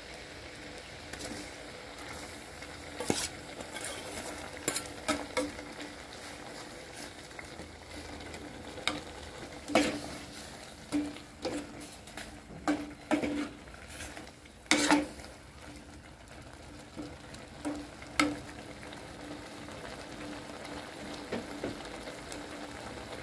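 Beef frying and sizzling in curry paste in an aluminium pot, stirred with a metal ladle that scrapes and knocks against the pot at irregular moments.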